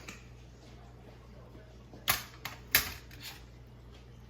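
A few sharp kitchen clicks or knocks, such as a utensil or container tapping against a pan, over a low steady hum. The two loudest come about two seconds in, about two thirds of a second apart, with two fainter ones around them.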